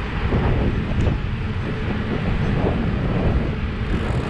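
Wind buffeting the microphone while riding an e-bike at speed: a steady, low, rumbling rush.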